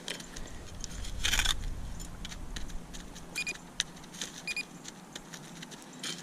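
Digging and sifting soil by hand in a hole being dug for a metal-detecting target: a loud scraping crunch of dirt about a second in, then scattered soil crackles. Two short high electronic beeps from the metal-detecting gear come a few seconds in, about a second apart.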